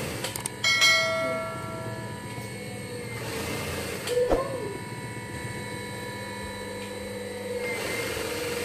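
A few clicks, then a bell ding that rings out and fades over about a second: the sound effect of a subscribe-button and notification-bell animation. Under it runs the steady hum of a Juki industrial sewing machine.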